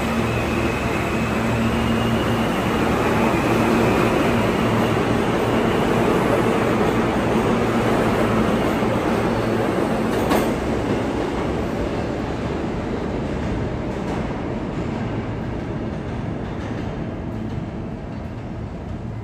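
G subway train running through the station, its rumble swelling over the first few seconds and then fading away as it leaves, with one sharp click about ten seconds in.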